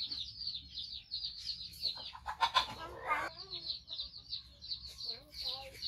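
Birds chirping in quick, repeated high notes, typical of chickens and their chicks, with a louder call about two and a half seconds in.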